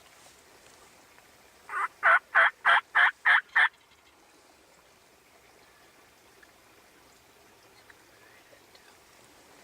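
A run of seven loud, evenly spaced turkey yelps, about three a second, lasting around two seconds, starting near the second mark.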